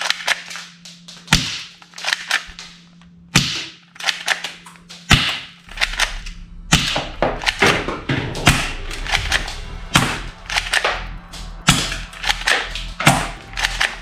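Plastic toy pistol being worked by hand: a string of sharp, irregular clicks and clacks from its slide and trigger mechanism, several a second with short gaps, over a faint low hum.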